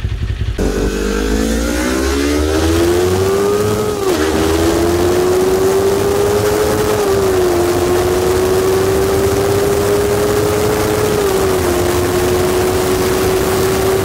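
A vehicle engine cuts in suddenly and accelerates hard through the gears. Its pitch climbs, dips briefly at three quick upshifts a few seconds apart, then climbs again, over a steady rush of wind noise.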